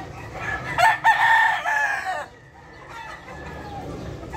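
Gray gamefowl rooster crowing once. The crow starts just under a second in and lasts about a second and a half.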